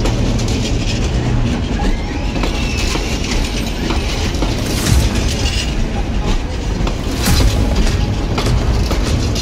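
Bangladesh Railway intercity passenger train rolling slowly past along the platform. Its wheels rumble and clack over the rail joints, with a few sharp clacks partway through.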